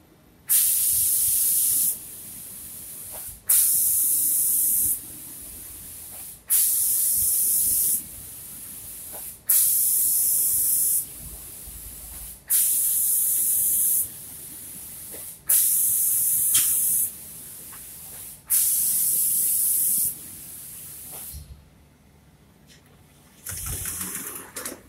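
Spray gun of an automatic cabinet door painting machine spraying finish coat in regular hissing bursts, switching on with a click about every three seconds and spraying for about a second and a half each time, seven times; a fainter steady hiss fills the gaps. The spraying stops a few seconds before the end.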